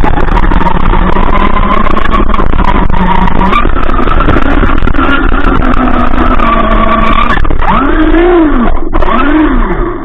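Traxxas RC car's motor and gears whining at speed, heard loud and close from an onboard camera over a constant rush of noise. Near the end the whine swoops up and down twice as the throttle is blipped.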